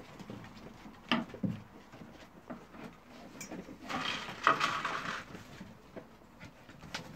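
Puppies tussling in play on a wooden deck: paws scrabbling and knocking on the boards, with two thumps a little after a second in and a louder scuffling noise lasting about a second around four seconds in.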